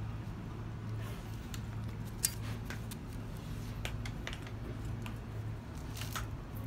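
Bull terrier puppies moving about close by and at a bowl of kibble: scattered light clicks and taps, one a little louder about two seconds in, over a steady low hum.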